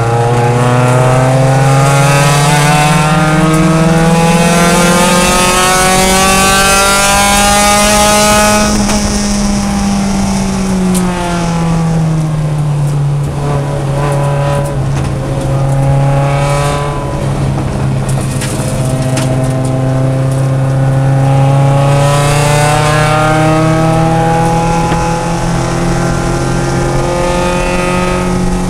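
Mazda Miata race car's four-cylinder engine at full throttle, heard from inside the stripped cockpit. The engine note climbs steadily for about eight seconds, drops sharply, sags for a few more seconds, then climbs again more slowly and holds steady near the end.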